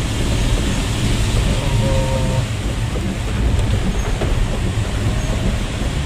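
Vehicle running along a road, heard from inside the cabin: a steady low engine drone with road and tyre noise over it.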